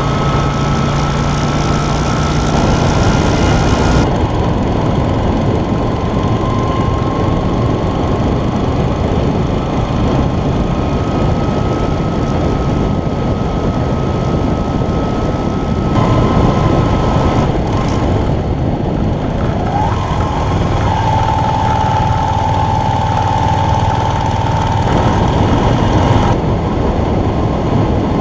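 Yamaha Virago XV250's air-cooled V-twin engine running at road speed, heard from an onboard camera along with steady wind and road noise. The sound shifts abruptly in tone a few times.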